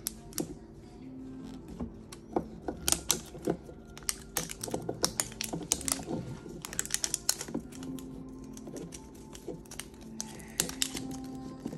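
Fingernails picking and peeling at the plastic seal and wrapper of an L.O.L. Surprise! Miniature Collection ball: irregular clicks, taps and small crinkles, thickest in the middle.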